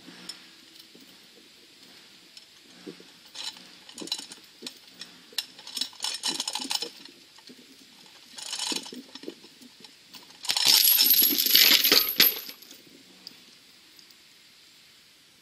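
Steel chains of a hand-operated lever stump puller clinking and rattling in short spells. About ten seconds in comes a much louder metallic clatter lasting about two seconds, as the chain comes loose from the stump and the wooden lever beam drops.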